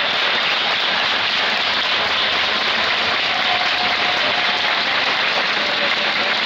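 Badminton arena crowd applauding a won point: a steady wash of clapping with no breaks.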